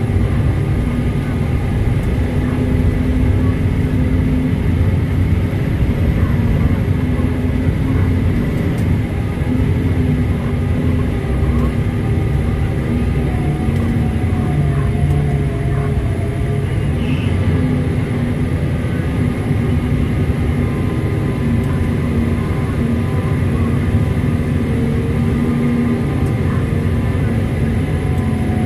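Komatsu HD785-7 haul truck's V12 diesel engine running steadily as the truck drives, heard from inside the cab, with a faint steady high whine over the low engine drone.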